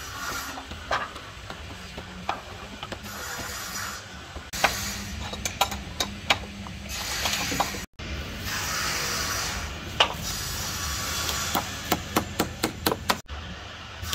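A hammer knocking on wood: scattered single knocks and clicks, then a quick run of sharp taps, about three or four a second, near the end.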